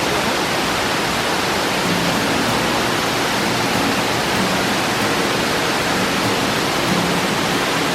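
Waterfall: water pouring and splashing in a steady, loud rush with no letup.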